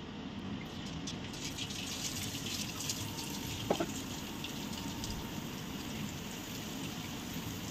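Drops of boondi batter falling through a perforated strainer into hot oil, sizzling and crackling steadily as they fry, with a light knock about halfway through.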